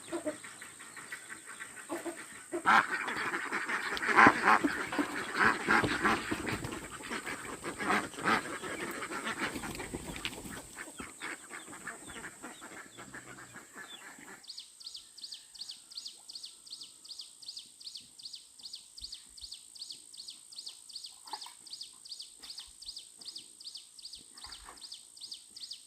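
Farm poultry calling noisily as a flock for about fourteen seconds, then cut off suddenly. An insect takes over, chirping in a steady pulse of about three chirps a second.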